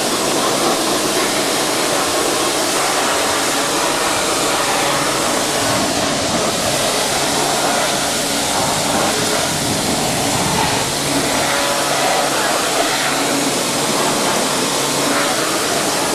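NESCO high-pressure washer running, its water jet hissing steadily as it sprays over a car's engine bay.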